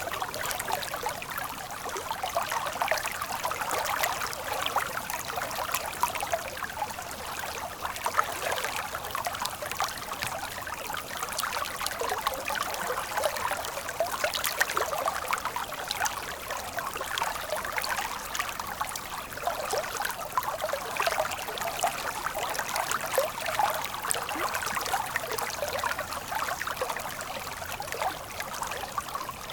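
A stream flowing steadily, babbling with many small splashes; the sound is light and hissy, with little deep rumble.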